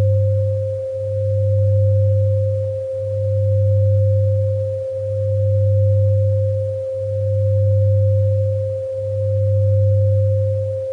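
A steady pure 528 Hz sine tone, held unbroken, over a low hum that swells and dips about every two seconds.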